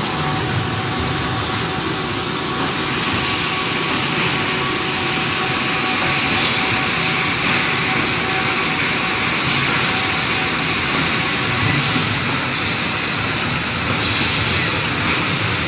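Veneer peeling line and its belt conveyor running: a loud, steady machine noise with a faint whine in it, and two short bursts of hissing near the end.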